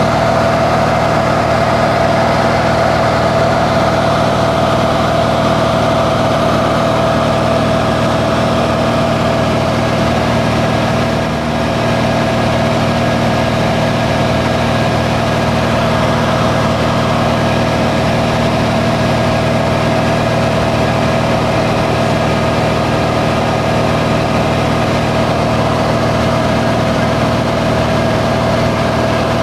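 Small high-wing plane's piston engine and propeller running steadily in level flight, heard from inside the cabin as a loud constant drone with several steady tones.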